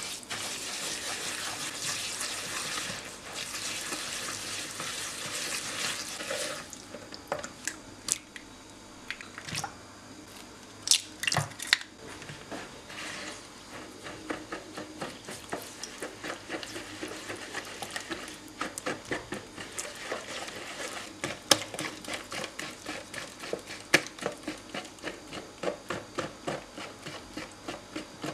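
Silicone-coated whisk stirring sugar and oil in a plastic mixing bowl: a steady swishing hiss for about the first six seconds, a few sharp knocks around eleven seconds in, then quick, even ticks of the whisk against the bowl as the mixture turns liquid.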